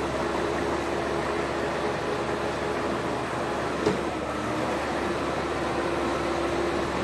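Tracked excavator's diesel engine running steadily under load, a constant droning tone through its noise, as the boom pushes against a tree. A single short sharp snap about four seconds in.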